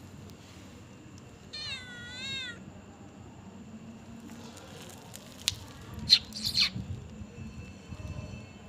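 A domestic cat meows once, about a second and a half in: a single call of about a second with a wavering pitch. A few seconds later come a sharp click and short, loud, noisy bursts, the loudest sounds here.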